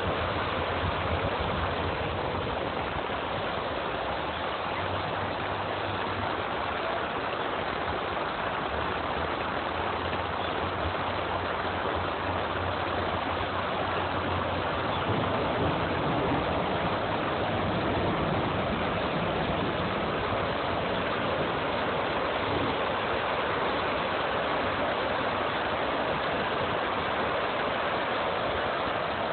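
Heavy downpour with floodwater rushing over stone steps into a river: a steady, dense hiss of rain and running water. A low hum sits underneath through roughly the first half.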